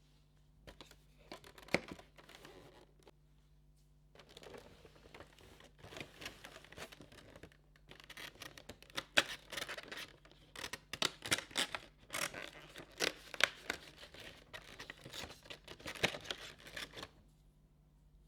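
Cardboard advent calendar packaging being torn open and handled. Bursts of tearing and crinkling come with sharp snaps, pausing briefly about three seconds in.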